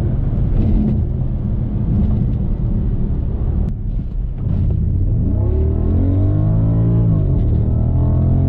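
Audi S8's 5.2-litre V10 running. Its revs drop briefly about four seconds in, then climb steadily, dip sharply and settle at a steady higher speed near the end.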